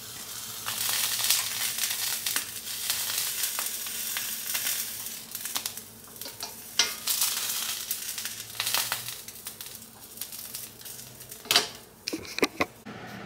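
Food sizzling as it fries in a skillet, the hiss swelling and easing several times and dying away near the end, with a few sharp clicks of a cooking utensil against the pan.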